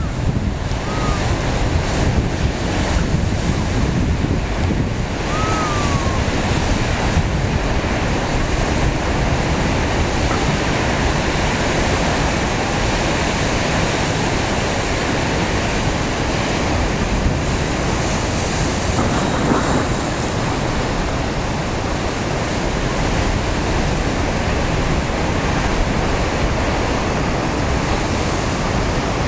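Wind-driven lake surf breaking and churning along the shore in a steady, continuous rush. Strong wind buffets the microphone, adding a heavy low rumble.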